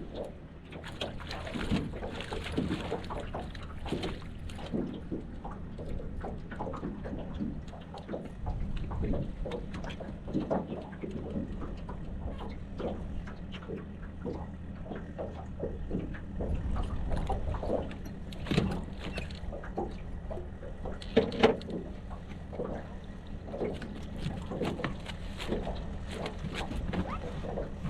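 Water sloshing and lapping against a boat hull, with irregular knocks and clunks on board, over a steady low hum.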